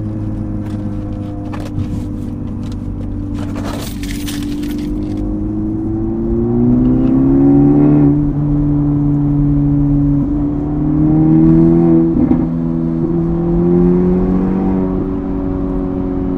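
Acura Integra Type S's turbocharged four-cylinder engine and Milltek cat-back exhaust heard from inside the cabin, accelerating at part throttle, its note climbing in pitch and holding. There is a brief rustle about four seconds in.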